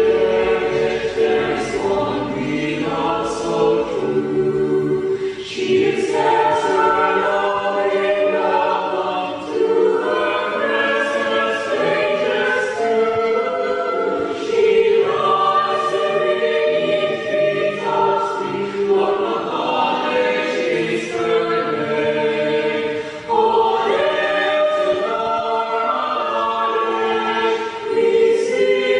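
A choir singing a slow song in long held phrases.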